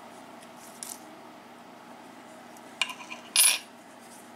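Small brass lock parts being handled: a few light metallic clicks about three seconds in, then one sharper clink with a brief ring, from the Sargent cylinder's plug and key.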